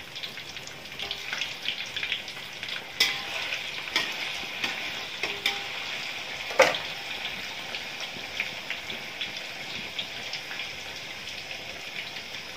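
Tofu sizzling and crackling as it fries in hot oil in a wok. A metal spatula clinks against the wok a few times while turning the pieces, loudest about six and a half seconds in.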